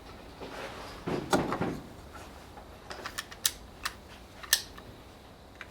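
A short rustle about a second in, then five sharp mechanical clicks spread over about a second and a half. They are too quiet to be shots.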